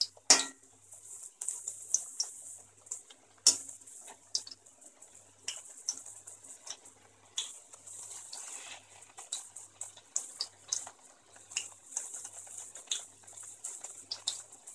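Potato strips deep-frying in hot oil, sizzling and crackling with irregular pops, in the first fry on a medium flame while the fries are still white. Two sharp knocks, one shortly after the start and one about three and a half seconds in.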